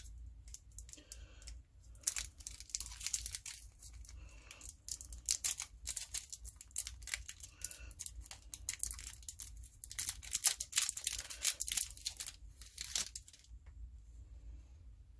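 Clear cellophane wrapper crinkling and rustling as it is pulled off a cigarillo, a dense crackling run that stops shortly before the end.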